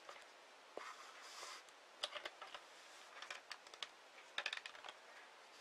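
4 mm beads clicking lightly against each other and the beading needle as they are picked up and threaded: scattered small taps, some in short quick runs.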